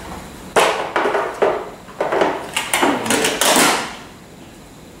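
A plastic storage case being shut and handled on a table: its lid knocking down and the contents rattling in a quick string of knocks and clatters lasting about three seconds.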